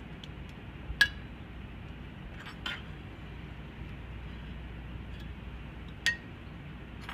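Sharp metallic snaps as metal shields are pushed down and seated on a mass spectrometer's sample magazine. There is a loud one about a second in, fainter clicks a moment later, and another loud snap near the end, each with a short ring. A solid snap is the sign that the part is seated properly. A steady low hum runs underneath.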